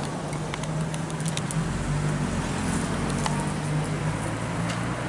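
An engine running with a steady low hum, which steps up slightly and gains more rumble about one and a half seconds in. Light scattered clicks and knocks sit over it.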